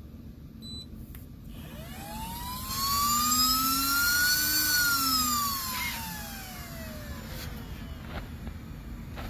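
A jet aircraft passing overhead. It swells and fades over several seconds, loudest a few seconds in, with its pitch sweeping up and then down, over a steady low hum.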